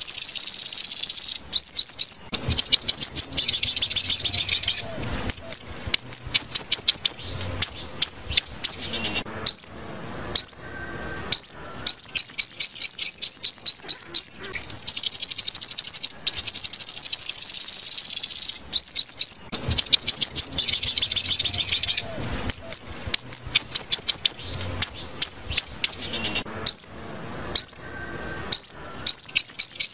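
Sunbird song: long, rapid high trills alternating with series of sharp chirps, the same sequence coming round again after about 16 seconds, as in a looped lure recording.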